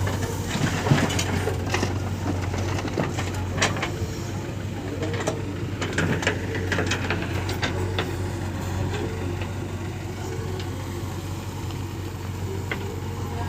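Heavy diesel engine running steadily while murum is loaded, with scattered sharp clatters and knocks of earth and stones, mostly in the first half.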